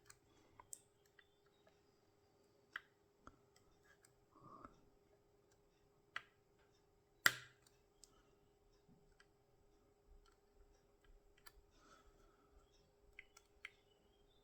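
Small, sparse clicks from a tubular hex core lock being picked, as its pins click under the pick and tensioner. The clicks are faint and irregular, with one sharper click about seven seconds in.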